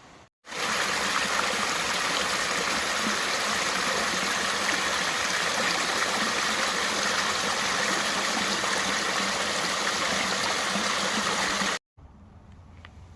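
Running water of a stream: a steady, even rush that starts abruptly just after the start and cuts off abruptly near the end.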